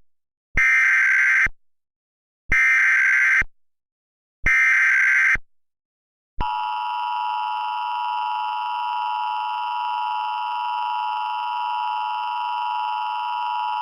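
Emergency Alert System SAME header: three one-second bursts of warbling data tones, about a second apart. About six seconds in, the steady two-tone EAS attention signal begins and holds.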